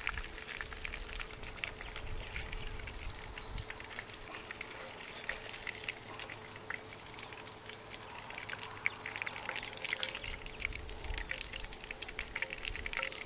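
Hot oil in a cast iron Dutch oven sizzling and crackling as battered catfish fries: a dense, continuous patter of small pops.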